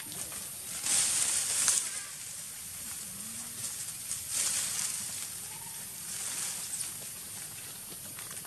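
Rustling of dry leaf litter under footsteps, in a few bursts about a second long, the first being the loudest.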